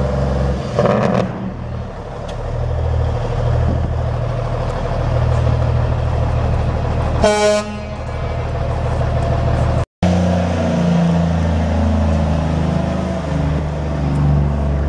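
Kenworth W900 semi truck's Cummins N14 inline-six turbo diesel running steadily, with one short horn blast about seven seconds in. The sound drops out for an instant near ten seconds, then the engine runs on.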